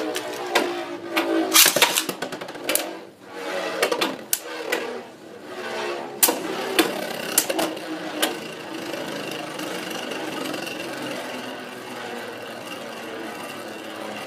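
Two Beyblade spinning tops, Luinor L2 and Tornado Wyvern, clattering against each other and the plastic stadium with sharp clicks over the first several seconds, then settling into a steady high whir as both spin around the bowl.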